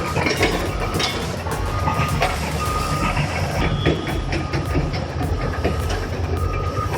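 A heavy bulldozer running under load, its steel tracks clanking and rattling over a steady low engine rumble, with a short high beep sounding several times.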